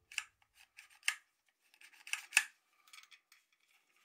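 A black plastic toy drum magazine being handled and turned in gloved hands, giving a few short, sharp plastic clicks and scrapes, the loudest about a second in and two close together past the middle.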